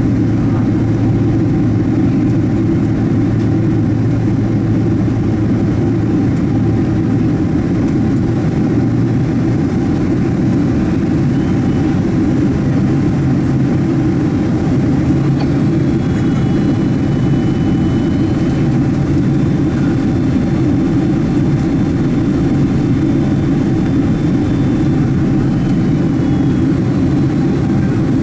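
Boeing 767 cabin noise from just ahead of a General Electric CF6 turbofan: a steady engine and airflow drone. Its low hum steps up a little in pitch about nine seconds in and again around halfway.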